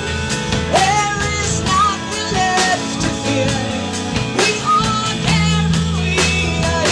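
Rock band playing live: drum kit hits, sustained bass notes and a melodic lead line that slides between pitches.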